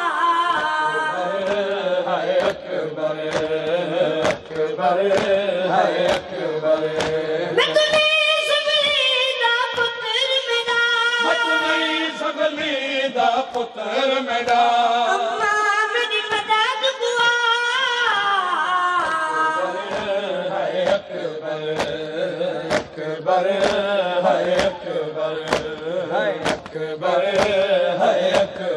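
A boy chanting a noha, a Shia lament, with a group of men singing the refrain along with him. Under the voices runs a steady beat of open-hand strokes: the chest-beating of matam keeping time with the lament.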